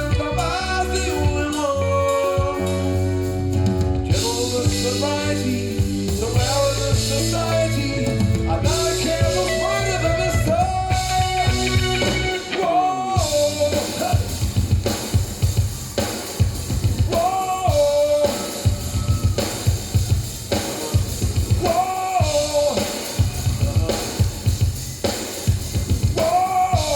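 Recorded music played back over a high-end stereo system through loudspeakers. About twelve seconds in it changes from held bass and sustained melody to a drum-led passage, with a short melodic phrase coming back every few seconds.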